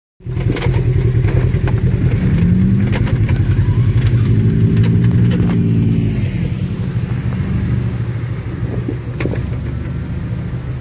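Off-road vehicle engine running steadily, its pitch rising about two seconds in and dropping back about six seconds in, with a few sharp clicks and knocks.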